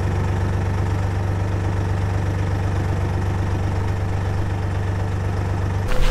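Narrowboat engine idling steadily while moored, a low even hum with a fine regular pulse. It cuts off abruptly near the end.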